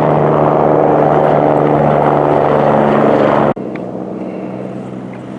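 Loud steady engine noise that cuts off abruptly about three and a half seconds in, followed by a quieter steady engine hum.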